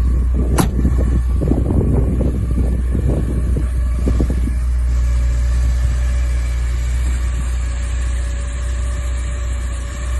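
The rebuilt four-cylinder engine of a Porsche 944 running, a steady low rumble with rougher surges in the first few seconds and a sharp click about half a second in.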